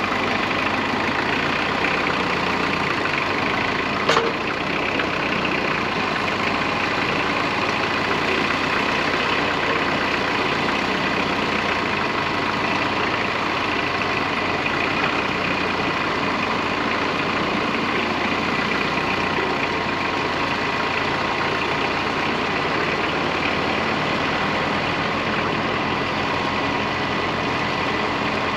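Engine idling steadily, with one sharp click about four seconds in.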